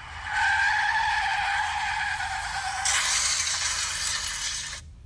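Car tyres screeching in a long skid, with a steady squeal that turns into a harsher, higher hiss about halfway through, then cuts off suddenly.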